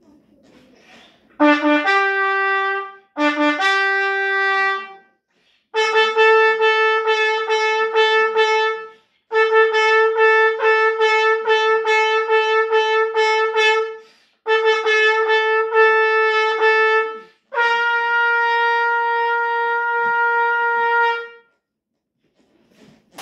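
Trumpet played solo: two short phrases, each a low note stepping up to a higher one, then four long held notes of about three seconds each, with short breaths between.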